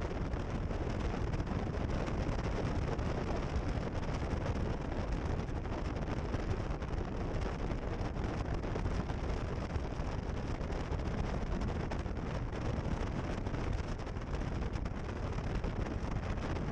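A boat under way, with wind buffeting the microphone: a steady, unbroken noise with a heavy low rumble.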